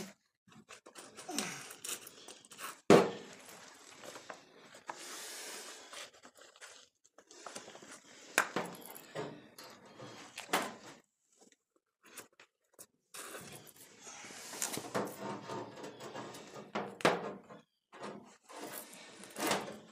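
Scattered knocks, clinks and scrapes of hand work and handling in a workshop, with gaps between; the loudest is a sharp knock about three seconds in.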